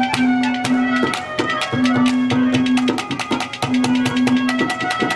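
Live folk instrumental music with no singing: rapid hand-drum strokes under held, repeating melody notes.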